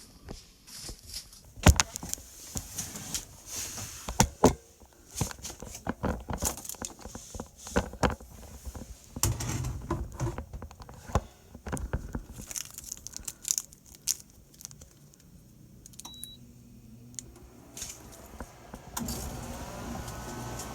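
Irregular clicks, knocks and rustling, as of things being handled. About nineteen seconds in, a steady hum with faint gliding tones starts up.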